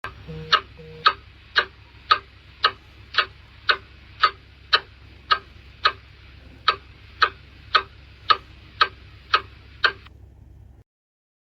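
Antique clock ticking off the seconds: sharp, even ticks about two a second over a faint low hum. The ticking stops near the end.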